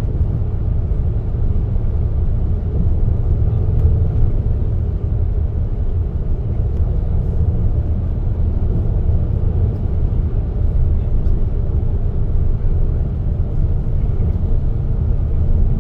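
Steady low rumble of a moving road vehicle heard from inside its cabin: engine and road noise.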